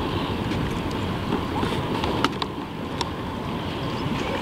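Wind and harbour water on the microphone: a steady low rumbling noise, with a few faint sharp clicks about halfway through.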